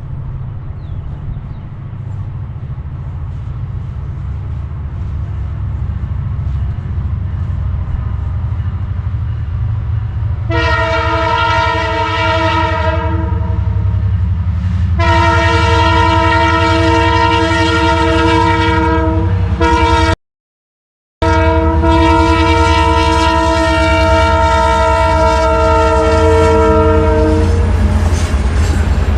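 Diesel freight locomotive approaching with its engine rumble growing louder, sounding its multi-chime air horn in long blasts for grade crossings: a first blast about ten seconds in, then two longer blasts.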